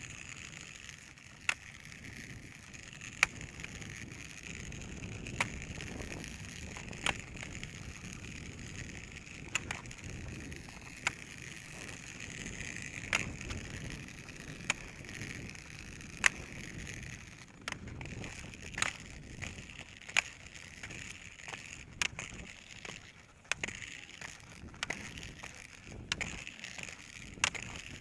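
Roller skis rolling on an asphalt path, a steady rolling noise, with a sharp click from the ski-pole tips striking the pavement about every one and a half to two seconds.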